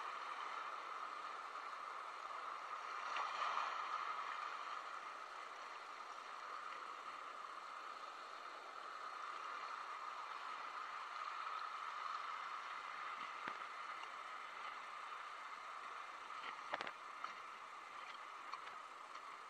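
Rough sea surf washing over rocks, a steady rushing that swells a little about three seconds in, with a few faint clicks near the end.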